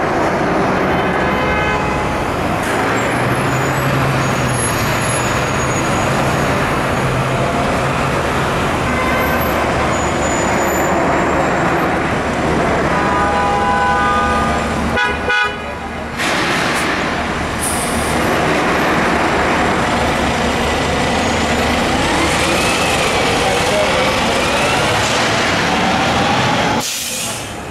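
Fire engine responding through city traffic: its horn sounds in long blasts near the start and again about halfway through, over the heavy engine and street noise. Later a siren wails, rising and falling.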